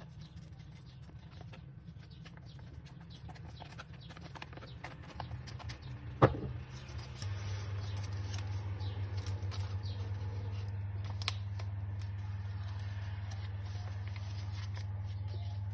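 Hands handling and folding stiff paper: soft rustles and small clicks, with one sharp knock about six seconds in. Under it runs a low steady hum that gets louder about seven seconds in.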